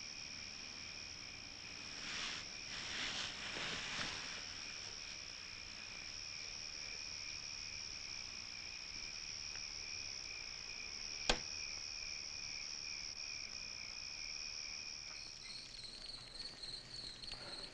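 Crickets trilling steadily as a quiet night background, with a few soft swishes about two to four seconds in and a single sharp click about eleven seconds in. Near the end a different, pulsing insect chirp takes over.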